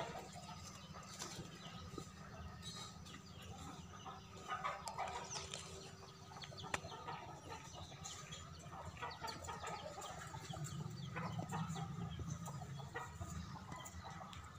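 Faint outdoor ambience of birds calling, short scattered chirps, over a steady low rumble.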